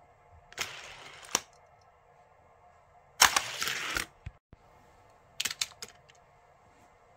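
Hot Wheels die-cast toy car running on a plastic track: a short rolling rush about half a second in that ends in a click, then a sharp snap about three seconds in followed by a rattling roll of under a second. Near the end, a few light plastic clicks as the next car is set down on the track.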